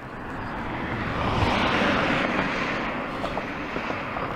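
A vehicle passing close by on the road, its tyre and engine noise swelling to a peak about two seconds in and then fading.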